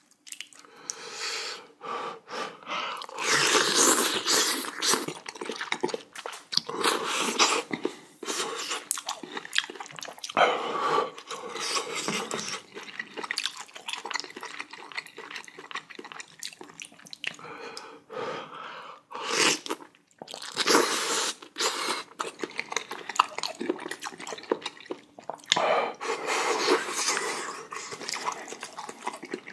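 Close-miked eating of spicy jjamppong noodle soup: wet slurping and chewing in irregular bursts, with a few short pauses.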